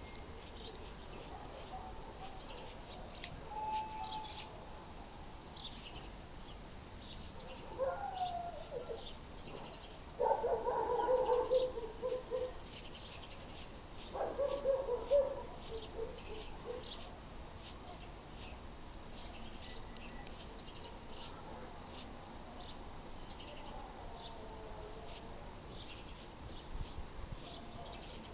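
Peacock butterfly (Aglais io) flicking its wings open and shut, making a scattered series of faint, dry, high clicks, the clicking this species gives as it flashes its wings. A few animal calls sound in the middle, the loudest about ten seconds in.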